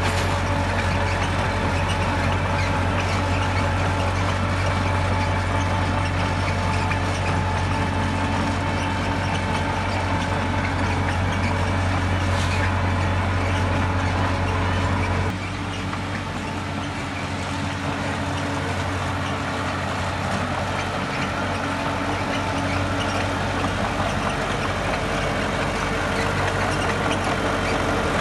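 Heavy diesel engine of earthmoving machinery running steadily with a deep drone; about halfway through the drone drops and the sound becomes a little quieter.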